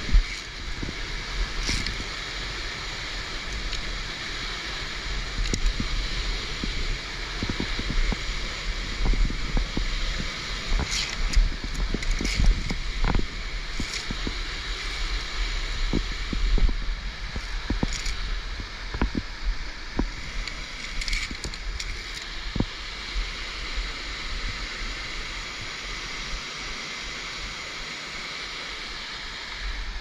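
Waterfall rushing steadily, with scattered sharp clinks and knocks of via ferrata carabiners sliding along and catching on the steel safety cable.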